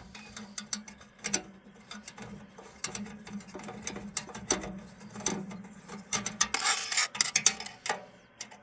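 Irregular small metal clicks and ticks of an Allen wrench turning screws out of an old signal generator's metal chassis, with a denser run of scraping clicks a little after six seconds in.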